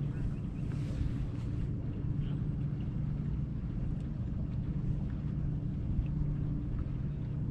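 Low, steady electric hum aboard a bass boat, swelling and easing every couple of seconds, over a low rumble of wind on the microphone.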